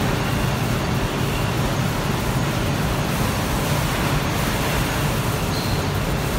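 Krones Contiform S stretch blow moulding machine running in production: a steady, even machine noise with no breaks.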